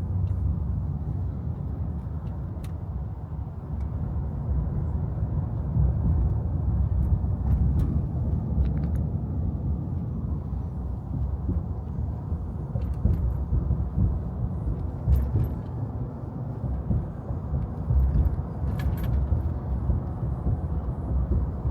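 Steady rumble of road and tyre noise from a Ford F-150 Lightning electric pickup driving in highway traffic, with no engine sound. A few faint clicks and rattles come through now and then.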